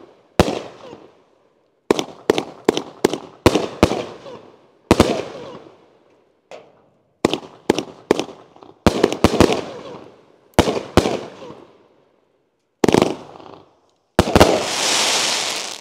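A consumer firework cake of 25 colored peony shells with a crackle willow finale is firing: about twenty sharp bangs, each with a short echoing tail, come in irregular clusters of two or three with brief gaps between. Near the end a dense crackling hiss follows the last bangs as the crackle finale goes off.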